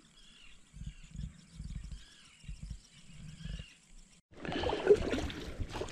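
Wind buffeting the microphone in low rumbling gusts, with a few faint high chirps in the background. After a cut about four seconds in, a louder rushing noise.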